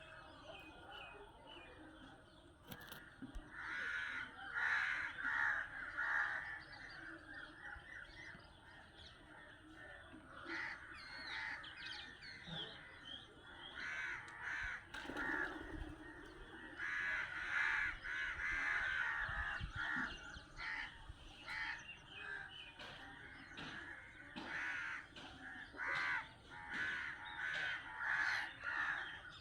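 A group of birds calling over and over, in bouts of several quick calls at a time.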